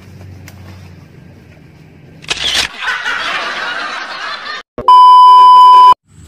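Edited-in sound effects. About two seconds in, a sudden loud burst fades into a hissing rush lasting about two seconds. It is followed by a loud, steady, one-second beep tone like a censor bleep, the loudest sound here.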